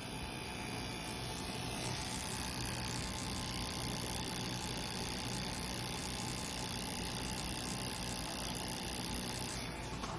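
Tattoo machine with a liner needle running with a steady whirring hum while it colours ink into skin.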